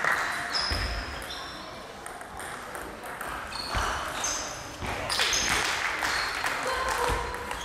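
Table tennis balls knocking on the table and bats: irregular sharp clicks, each with a brief high ping.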